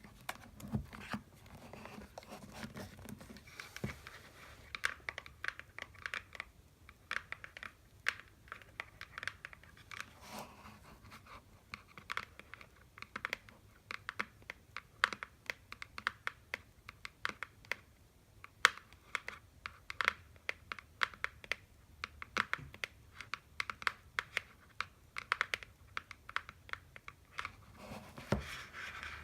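Candy boxes being tapped: quick, irregular runs of light, sharp taps, with some scratching and crinkling of the packaging between them.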